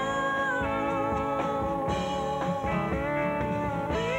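Rock music with long held notes that slide up and down in pitch over a steady backing.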